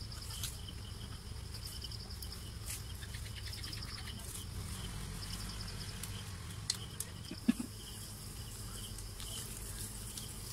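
Insects chirping in fast repeated pulses over a steady low rumble, with a few sharp clicks and a short knock about seven and a half seconds in.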